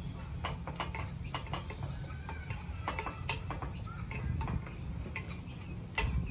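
A utensil clicking and scraping irregularly against a pan while the pepper sauce is stirred and spread, with a louder knock near the end. Wind rumbles steadily on the microphone underneath.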